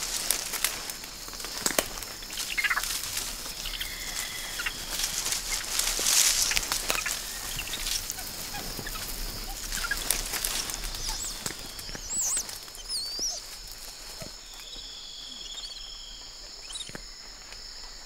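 Rainforest ambience: a steady high-pitched insect drone under scattered bird whistles and calls, including a quick warbling phrase about two-thirds of the way through, with sharp clicks and rustles from the branches.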